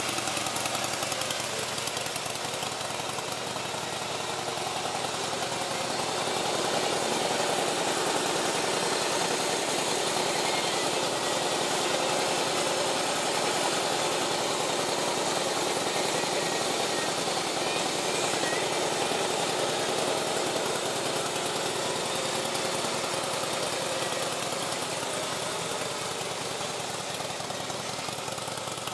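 Harley-Davidson CVO Softail Convertible's Twin Cam 110 V-twin engine idling steadily, with a fast, even pulsing.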